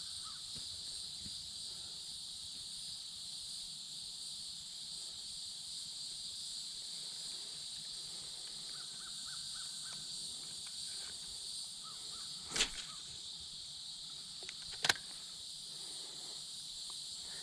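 Steady chorus of insects, a high even buzz with a second, higher band, and two sharp clicks about two seconds apart near the end.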